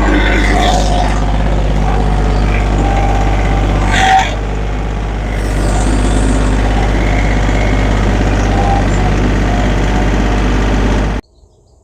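Tractor engine running steadily, with a brief clank about four seconds in; it cuts off abruptly near the end.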